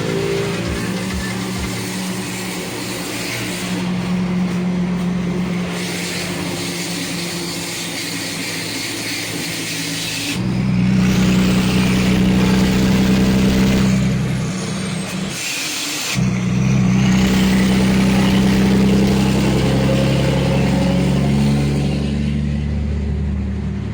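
Ford Cargo truck's diesel engine running with a loud, deep exhaust rumble. The note steps up about ten seconds in, drops off for about a second near the middle, then comes back strong.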